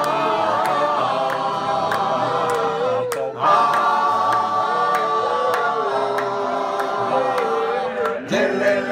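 A small group of men singing a doo-wop harmony a cappella, holding long chords. The voices break off briefly about three seconds in and come back in on a new held chord.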